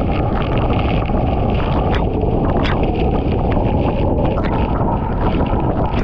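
Powerful waterfall pounding into its plunge pool close by: a loud, steady rush of falling water. Wind and spray buffet the microphone, with many small sharp hits through it.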